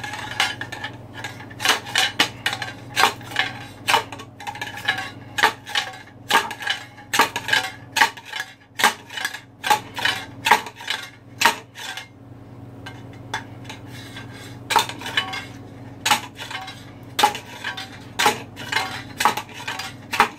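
A long steel rod rammed repeatedly down inside a stock Harley exhaust pipe, clanking metal on metal against the catalytic converter core to knock it out. The strikes come at about one to two a second, with a pause of a couple of seconds partway through, over a steady low hum.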